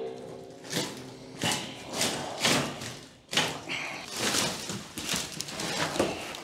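Steel sleeper-sofa (hide-a-bed) frame and bedsprings being folded back into the couch base. It makes a series of about six separate knocks, thuds and scrapes, with a brief squeak a little past halfway.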